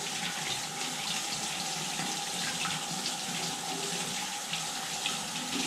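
A tap running steadily, its water stream splashing over a baitcasting reel's parts held under it to rinse off sea salt.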